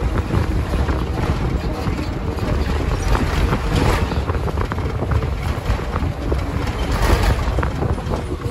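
Steady engine and road rumble heard from inside a moving Maharashtra state-transport (ST) bus.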